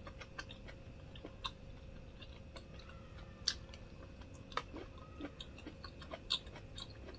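Faint chewing and mouth sounds while eating, with small sharp clicks and smacks at irregular intervals.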